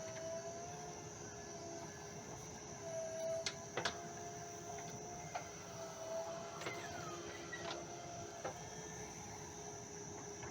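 JCB backhoe loader working: a steady whine whose higher note comes and goes in stretches of about a second, with a few sharp knocks around four seconds in and again near the end.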